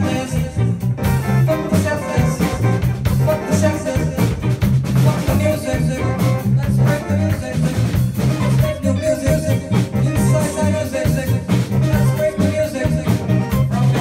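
Live rock band playing: drum kit, electric bass, electric guitar and electric keyboard, with a lead singer's voice over them.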